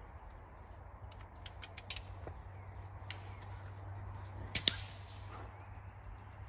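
An air rifle shot: a pair of sharp cracks close together about four and a half seconds in, consistent with the shot and the pellet striking a metal field target. A few lighter clicks come a second or two earlier.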